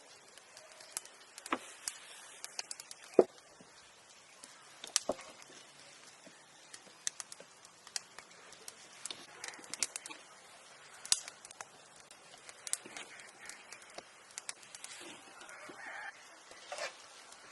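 Chickens clucking in the background, mostly near the end, with scattered sharp clicks and knocks throughout, the loudest about three seconds in.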